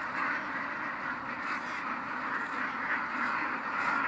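A large flock of penned domestic ducks quacking all at once: a steady, dense chorus of many overlapping calls.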